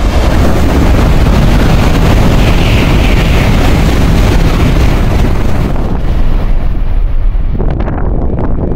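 N700-series Shinkansen passing through the station at high speed without stopping: a loud rush of air and wheel-on-rail noise, with wind buffeting the microphone. The rush eases about seven and a half seconds in as the train clears the platform, leaving gusts of its wake.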